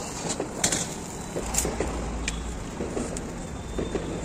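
Scattered light metal clinks of cooking utensils over a steady hiss of street noise, with a low vehicle rumble for a second or two in the middle.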